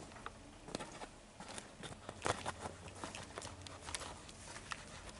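Footsteps: irregular taps and scuffs of someone walking and shuffling in a small chamber.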